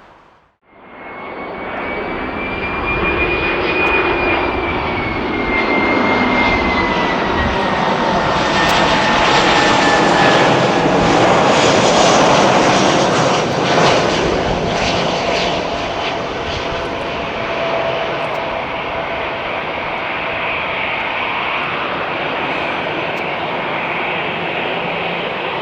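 Jet airliner passing by, its engine whine falling slowly in pitch as it goes past over a thick rush of jet noise. The sound starts just after a short cut to silence, is loudest about halfway through, then eases off a little.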